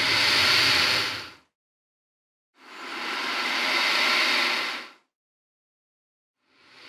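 Alligator hissing in separate breaths with silence between: one hiss trails off about a second and a half in, a full hiss of about two and a half seconds follows, and another begins near the end.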